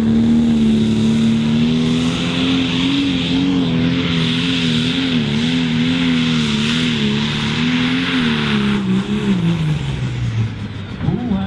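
John Deere 4650-based Pro Stock pulling tractor's diesel engine at full throttle dragging a weight sled. Its pitch wavers up and down for several seconds, then the revs fall away over about two seconds near the end.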